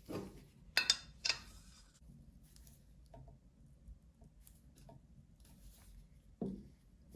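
Small metallic clicks and ticks of hand-handled refrigerant charging gear: an R-134a can being fitted to its piercing tap valve with gauge. Two sharp clicks come a little under a second in and just over a second in, then scattered faint ticks.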